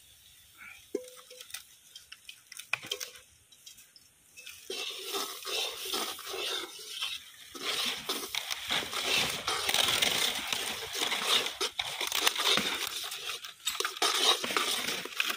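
Crushed Oreo biscuit powder being mixed into a milk and sugar batter: dry, irregular crunching and scraping that starts about five seconds in, after a few faint clicks.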